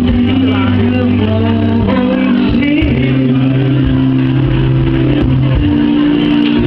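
Karaoke backing track of a Chinese-language pop song playing through a loudspeaker, with a man singing along into a microphone until he lowers it near the end.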